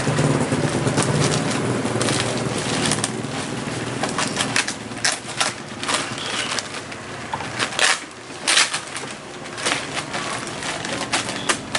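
Knife slicing through packing tape and plastic wrap on a cardboard parcel, with the plastic crackling and tearing in irregular bursts.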